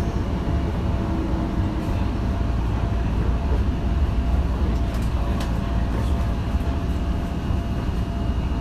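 Tokyo Metro Marunouchi Line 2000-series subway train running: a steady low rumble with a few steady tones over it, and a couple of faint clicks about five seconds in.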